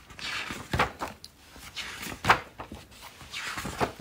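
Pages of a spiral-bound Erin Condren LifePlanner being turned by hand: three page turns, each a papery swish ending in a slap as the page lands.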